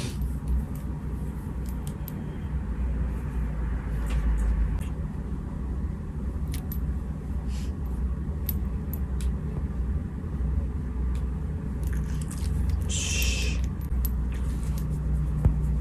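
Steady low rumble with scattered small clicks and a brief rustle about two-thirds of the way through.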